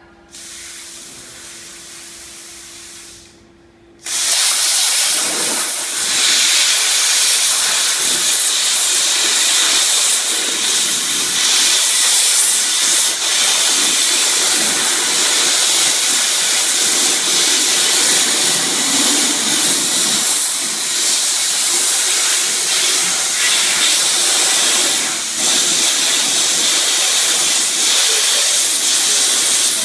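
Plasma cutter: a quieter hiss for about three seconds, then the cutting arc strikes about four seconds in and runs with a loud, steady hiss as it cuts through metal.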